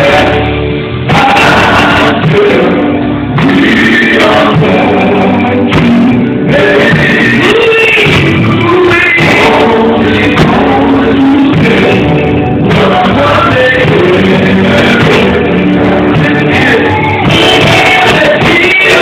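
Live band music: a male vocal group singing over a drum kit, electric guitar and bass guitar, played loud without a break.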